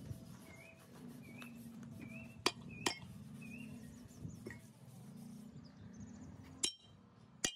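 A few sharp metallic clinks that ring briefly, two close together a few seconds in and two more near the end, over a steady low hum that stops shortly before the end.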